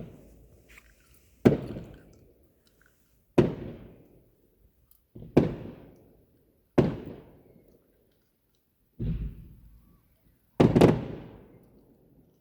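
Fireworks exploding: about six sharp bangs, one every second and a half to two seconds, each trailing off in a rumbling echo. The bang about nine seconds in is softer, and the one near the end comes as a quick double.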